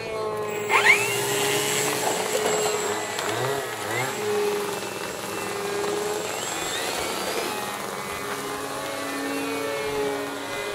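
Brushless electric outrunner motor and 14x6 propeller of a radio-controlled model aerobatic plane running, its pitch rising and falling with the throttle, with a brief loud peak about a second in.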